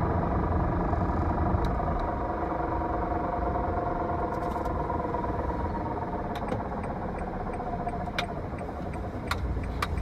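Honda N-ONE driving, with low road rumble and a steady whine from inside its CVT, the fault the owner traced to the transmission itself. The whine fades out about eight seconds in, and a few sharp clicks follow near the end.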